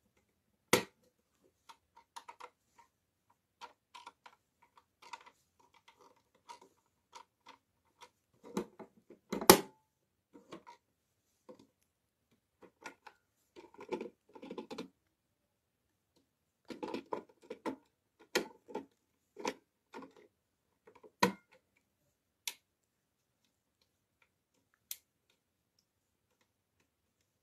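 Scattered plastic clicks and knocks from a washing-machine-shaped Bosch Maxx MIM-300 cassette player being handled: its porthole door, cassette lid and control knobs are worked. The loudest knock comes about nine and a half seconds in, and there are tight runs of clicks around fourteen and eighteen seconds.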